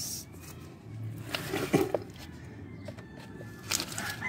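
Faint rustling and a few soft handling knocks as the camera moves among potted plants, with a faint thin high tone around the middle.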